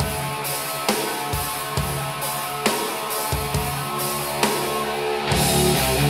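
Music with drums and guitar playing through a pair of Audioengine A5+ powered bookshelf speakers, picked up in the room by a portable recorder. About five seconds in the music gets louder and fuller in the bass.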